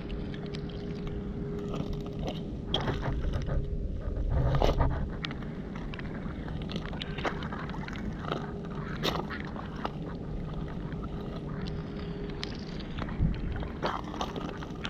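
Steady outdoor rumble with wind buffeting the microphone and a faint steady hum, over which come scattered clicks and scrapes of stones and shards being moved while searching the foreshore.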